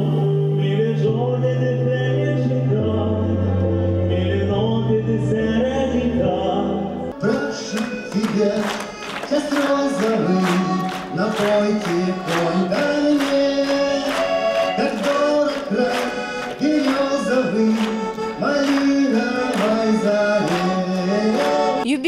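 A man singing a slow song over long held low accompanying notes. About seven seconds in, it cuts to a man singing to a lively button accordion (garmon) with a quick, even chord rhythm.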